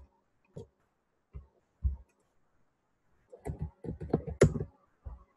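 Computer mouse and keyboard clicks: a few single clicks spaced about a second apart, then a quick run of several taps about three and a half seconds in, and one more near the end.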